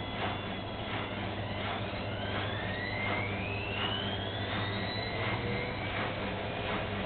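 Bauknecht washing machine speeding up into its spin: a steady motor hum with a soft knock about twice a second from the turning drum, and a motor whine that rises in pitch over a few seconds from about two seconds in.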